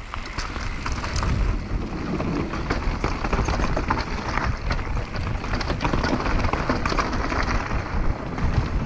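Downhill mountain bike ridden fast over a rough, rocky trail: tyres running over dirt and stones, with continual chain and frame rattle and wind rumbling on the microphone.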